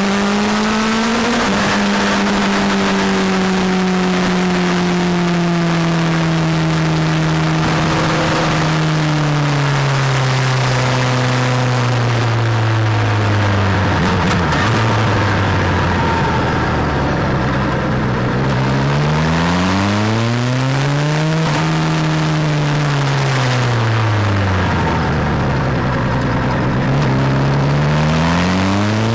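Suzuki GSX-R motorcycle's inline-four engine running on the road under heavy wind rush on the microphone. The revs fall slowly for about fifteen seconds as the bike slows, then rise and fall twice as it accelerates and eases off through the bends.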